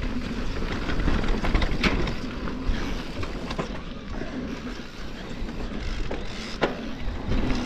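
Electric mountain bike rolling fast down a dirt trail: steady tyre and rolling rumble with wind buffeting the camera microphone, and a couple of sharp knocks and rattles from the bike over bumps.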